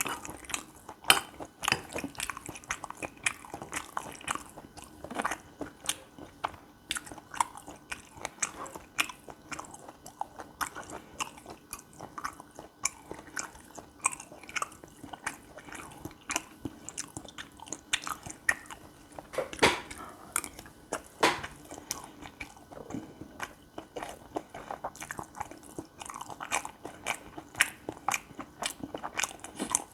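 Close-miked chewing of gopchang fried rice: a continuous run of quick mouth clicks, with a couple of louder ones about two-thirds of the way through.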